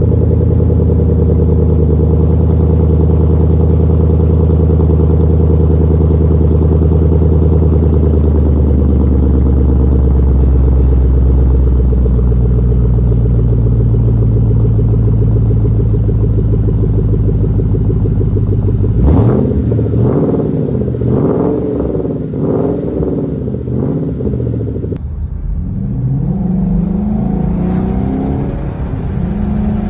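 2011 Mustang GT's 5.0 V8 idling with its mufflers removed, a deep, very loud exhaust, then revved about five times. Near the end it changes to the same engine on its stock exhaust, heard from inside the cabin, accelerating as the car pulls along.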